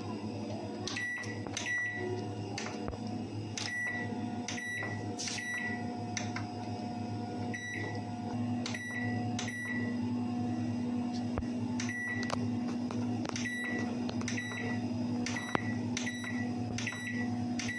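Dawlance microwave oven's control panel beeping as its buttons are pressed to set the time: about twenty short high beeps, often two or three in quick succession with gaps between, over a steady low hum.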